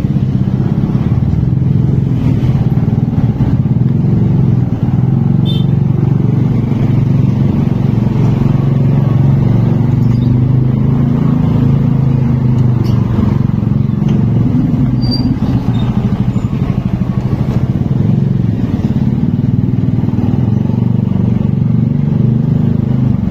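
Small motorcycle engine running at a steady speed, heard while riding along.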